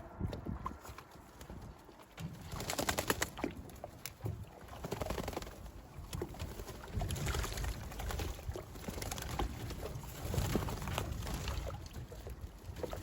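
Racing pigeons bathing: bursts of wing flapping and splashing in bath water, with cooing among them.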